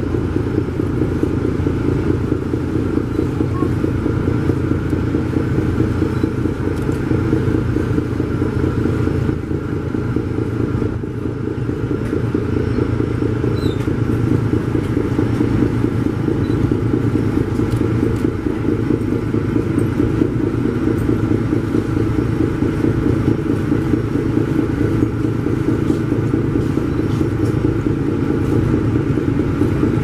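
Twin six-cylinder Daihatsu marine diesel engines of a large river passenger launch running steadily at cruising speed, with a fast, even rhythmic throb.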